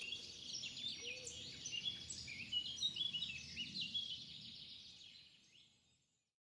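Several songbirds singing, quick chirps and whistles over a faint low background rumble, fading out about five seconds in.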